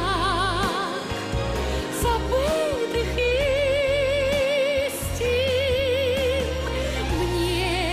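A woman singing a Russian pop ballad over band accompaniment, holding long notes with a wide vibrato. A steady bass runs underneath.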